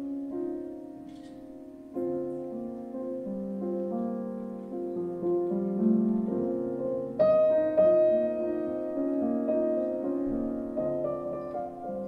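Solo grand piano playing a slow jazz passage: chords struck and left to ring, the melody moving above them, with a louder chord about seven seconds in.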